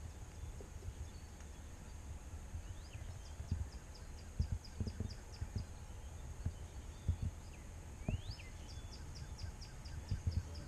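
A songbird singing faintly, twice: each song is a rising note followed by a quick run of high, evenly spaced notes. Low, irregular thumps and rumble on the microphone run underneath.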